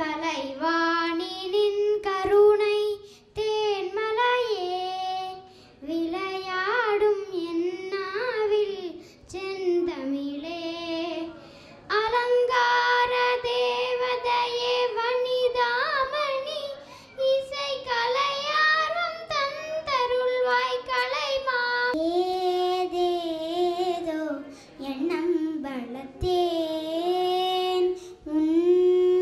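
A young girl singing solo without accompaniment into a handheld microphone, with long held notes in the middle. A little past two-thirds of the way through, a different girl's singing takes over after a short break.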